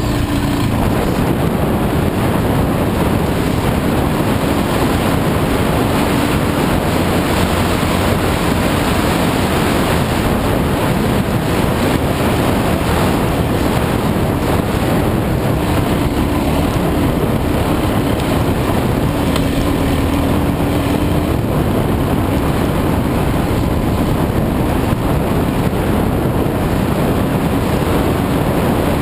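Dual-sport dirt bike engine running under way at speed, its pitch shifting a little with the throttle, mixed with heavy wind noise on the camera microphone.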